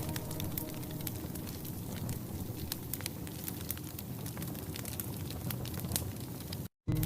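Wood fire in a fireplace crackling, with frequent sharp pops and clicks over a soft steady hiss. The sound cuts out completely for a split second near the end.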